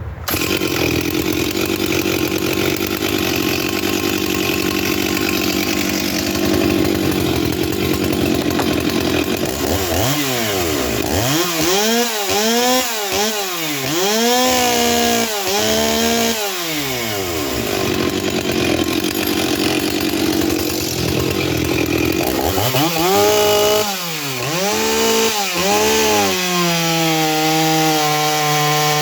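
Stihl 044 two-stroke chainsaw held at high revs, then revved up and down in a series of throttle blips, twice, before settling to a steadier lower speed near the end. The owner thinks it is running too lean, which he puts down to a summer carburettor tune.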